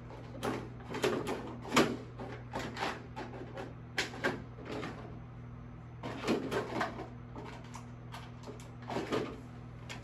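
Hands handling small parts and tools on an electronics workbench: irregular clicks, taps and short rustles, over a steady low hum.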